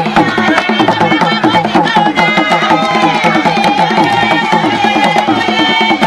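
Gule Wamkulu dance drumming: drums beating a fast, steady rhythm, with voices singing over it.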